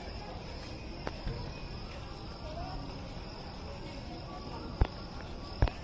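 A steady high-pitched insect trill, with faint distant voices and two sharp taps close together near the end.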